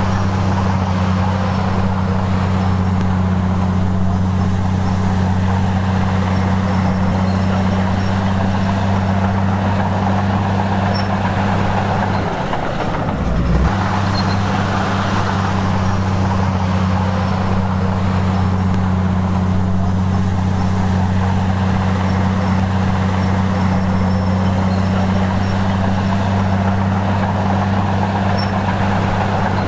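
Diesel engine of heavy earthmoving machinery running steadily under work, with a strong low hum. The hum breaks off briefly a little before halfway through, then returns.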